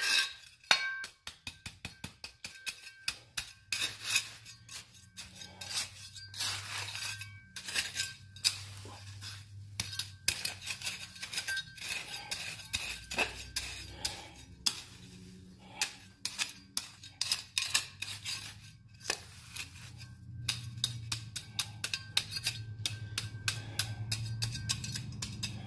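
Metal garden trowel jabbing and scraping through a pile of burnt copper wire on a concrete floor: a quick, irregular run of sharp clinks and scrapes as the charred insulation and ash are knocked off the wire.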